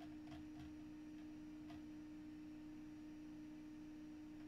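A steady low hum on one pitch, with a few faint clicks of a mouse scroll wheel in the first two seconds.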